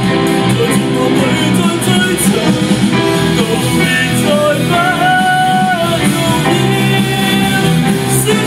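A rock band playing live, with electric guitars, bass guitar, keyboard and drum kit, and a voice singing over it.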